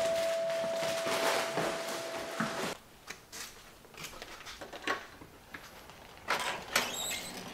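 A doorbell chime's tone rings on over the crinkle of a chip bag, then cuts off about two and a half seconds in. After that come a few clicks and knocks of a front door being unlatched and opened.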